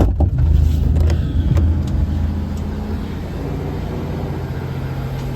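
Diesel multiple-unit train heard from inside the carriage while under way: a steady low engine drone with running noise, easing a little over the first few seconds and then holding level.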